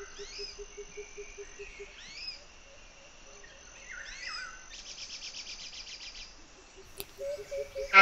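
Birds chirping in the background: a few short, sharply rising calls, then a rapid, even trill a little past the middle, over a faint low pulsing sound.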